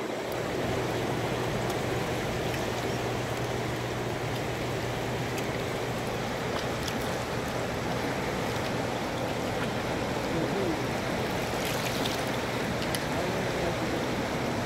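Steady rush of choppy flowing water, with a low steady hum underneath.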